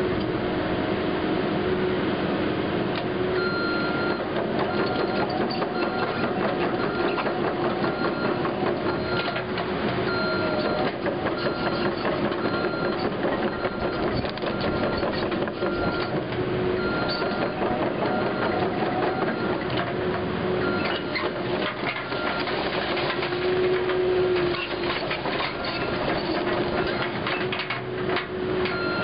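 Cat 308E2 CR mini excavator travelling on its tracks: the diesel engine runs steadily while the tracks clatter and rattle. From about three seconds in, a travel alarm beeps about once a second.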